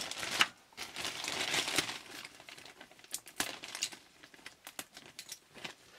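Plastic bag crinkling as it is handled and pieces of cuttlefish bone are taken out, loudest about half a second in, then a few light clicks and taps.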